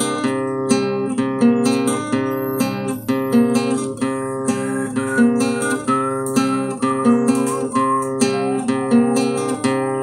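Instrumental background music with plucked strings, playing steady chords in an even rhythm, with a higher wavering melody line through the middle.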